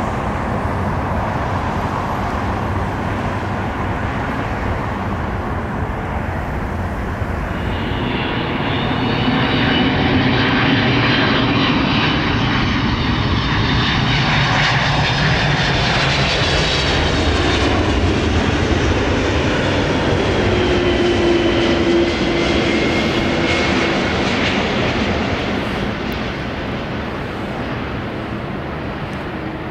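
Twin-engine jet airliner on final approach passing close by: its engine noise swells from about eight seconds in, with whining fan tones that drop in pitch as it goes past, then fades toward the end.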